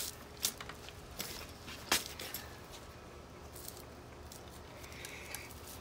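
Rush cord rustling and creaking against the wooden rails of a chair as it is pulled and wrapped around a seat corner, with a few sharp clicks, the loudest about two seconds in.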